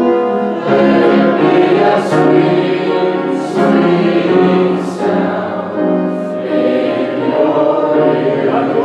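Many voices singing a hymn together in held chords.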